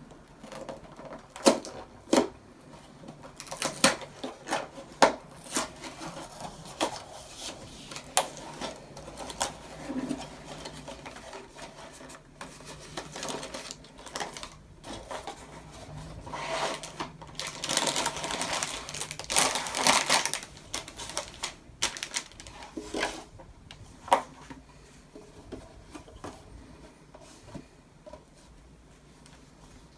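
A cardboard LEGO set box handled and opened on a tabletop: sharp taps and knocks of the box on the table in the first several seconds, then a longer stretch of cardboard flaps scraping and plastic parts bags rustling as they come out, loudest about two-thirds of the way through, settling into light handling near the end.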